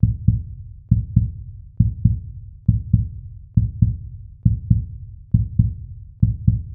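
Low heartbeat-like pulse in outro music: pairs of deep thumps a quarter second apart, the pair repeating a little faster than once a second.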